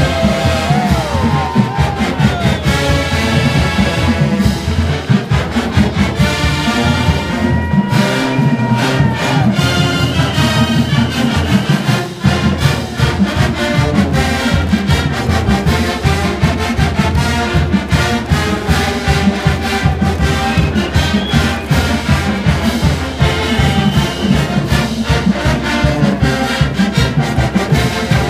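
College marching band playing a brass-and-drum tune with a steady beat.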